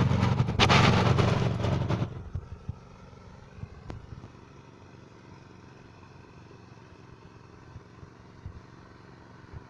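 Rice threshing machine driven by a small engine: a loud rushing, rattling noise for about the first two seconds, then only the engine's steady hum with a few light knocks.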